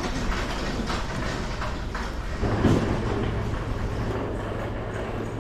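Market-street ambience: an irregular, rolling clatter over a noisy background, with a steady low hum setting in about halfway through.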